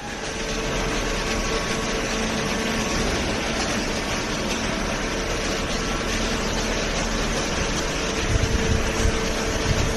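Hydraulic waste-paper baler running: a steady machine hum with a faint held tone, with some low bumps in the last two seconds.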